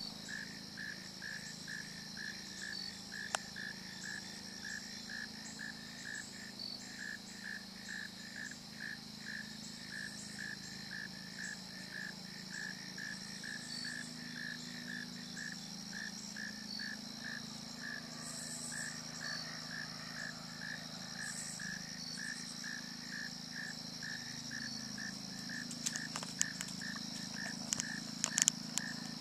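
Evening chorus of crickets and other insects: a steady high trill with a lower chirp repeating a little over twice a second. A few sharp clicks near the end from the camera being handled among branches.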